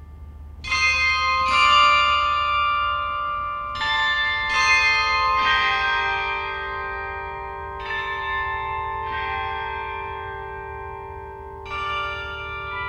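Bells struck one after another at several different pitches, about eight strikes, each ringing on long and overlapping the next.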